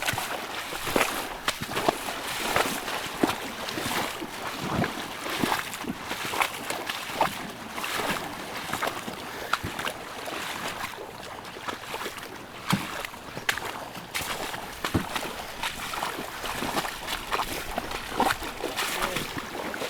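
River water splashing and sloshing in many uneven little bursts as people wade through the current, walking a canoe upstream.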